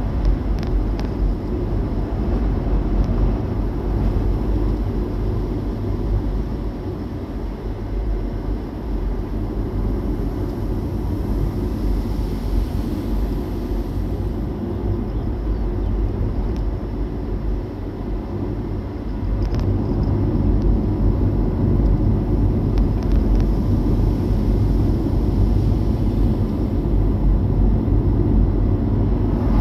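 A moving vehicle gives a steady low road and engine rumble, which grows a little louder about two-thirds of the way through.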